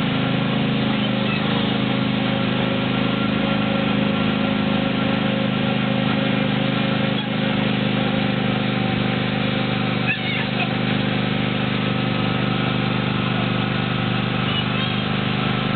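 Small engine of a ride-on train running steadily at an even speed, a constant low drone.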